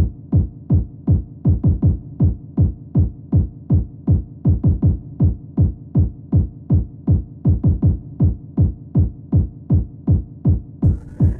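Electronic music intro: a bare kick drum pattern of deep, falling-pitch thuds, about two to three a second with some doubled hits. Higher instruments of the full track come in near the end.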